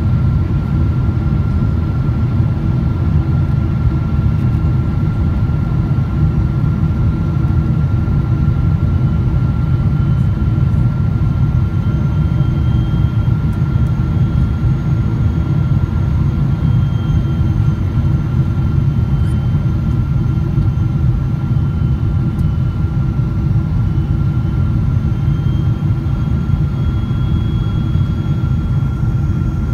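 Steady cabin noise inside a Boeing 777-300 descending to land: a low rumble of airflow and its Rolls-Royce Trent 892 engines, with a steady thin whine above it.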